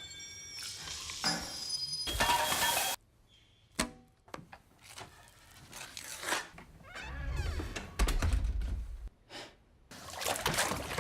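A sequence of film sound effects, edited with abrupt cuts: knocks, a pouring or trickling noise, a sharp click after a sudden drop to near silence, and a deep rumble about two thirds of the way in.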